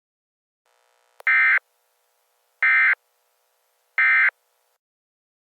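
Three short bursts of Emergency Alert System digital data tones, each about a third of a second and a little under a second and a half apart: the end-of-message code that closes an EAS alert.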